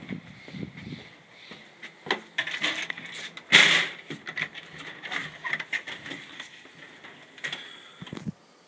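A front door being opened and walked through: a run of clicks and knocks from the latch and door handling, with the loudest sound a brief rushing scrape about three and a half seconds in as the door swings open.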